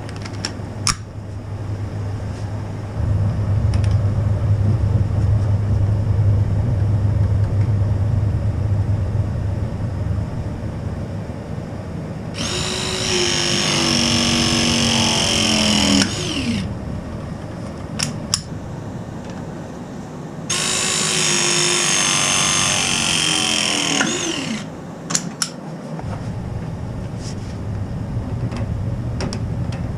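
ProPress pressing tool running two press cycles of about four seconds each, the first about a third of the way in and the second about two-thirds in, its motor whine dropping in pitch as each cycle finishes. A low steady hum and a few sharp clicks lie between them.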